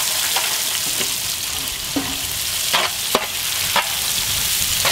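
Sliced onions sizzling steadily as they fry in hot ghee and oil in a large metal pot, with a few short clinks of the ladle against the pot.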